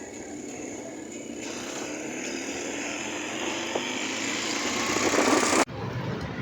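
Motor vehicle engine running steadily, slowly getting louder, then cut off abruptly about five and a half seconds in.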